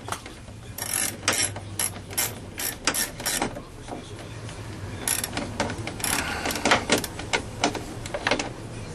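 Socket ratchet clicking in quick runs as it turns a small socket to drive in the screws holding a car door speaker. There is one run over the first few seconds and another from about halfway, with a short pause between.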